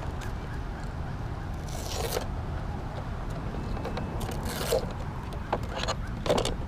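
Short scraping and rustling handling sounds, a few separate bursts, as a 4S LiPo battery pack is fitted into the hull of an RC boat.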